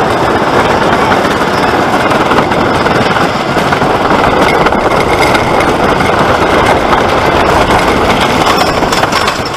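Wooden roller coaster train rumbling and rattling steadily along its wooden track through a turn. The noise drops away at the very end as the train reaches the lift hill.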